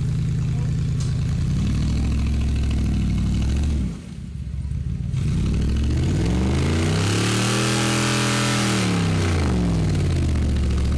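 Off-road trial vehicle's engine running at low revs, dipping briefly about four seconds in, then revving up hard, holding high revs for about two seconds with a rush of noise, and falling back to low revs near the end.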